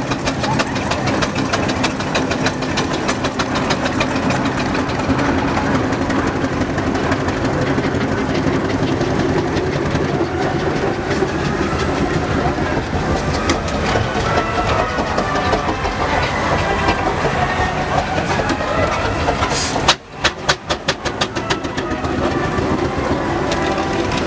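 Steam traction engines driving past: a steady mix of chuffing exhaust and mechanical clanking. Near the end the sound drops out for a moment, then comes back as a run of evenly spaced knocks.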